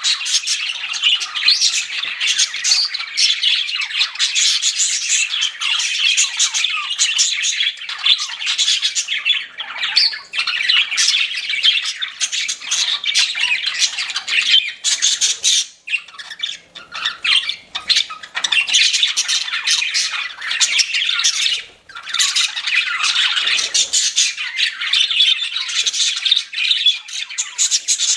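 A flock of budgerigars chattering and chirping continuously, many rapid overlapping squawks and warbles, with only brief lulls.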